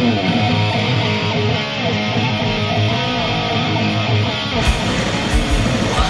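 Live rock band starting a song: an amplified electric guitar riff, with the drums joining about four and a half seconds in with kick drum and cymbal hits.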